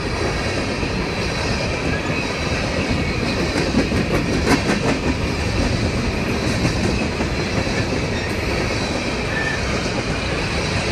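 Empty BNSF coal train rolling past: a steady rumble of steel wheels on rail, with rhythmic clicking over the rail joints and a burst of sharper clanks about four to five seconds in.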